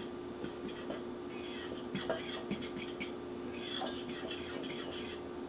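A fork stirring flour and spices in a mixing bowl, the tines scraping and clinking against the bowl in quick, irregular strokes that come in two busier spells, one a little after the first second and one past the middle.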